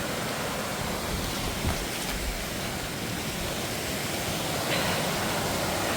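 Rushing water running steadily, with a couple of soft low thumps about two seconds in.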